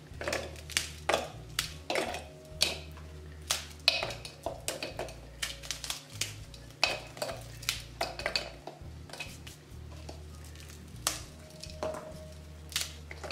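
Hard, stale bread being broken up by hand, the pieces dropping into the plastic bowl of a mini chopper: an irregular run of dry cracks and knocks.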